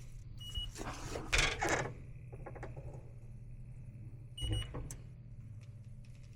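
Electronic refrigerant leak detector set to high sensitivity, giving two short high beeps about four seconds apart over a steady low hum, with handling rustles in the first two seconds.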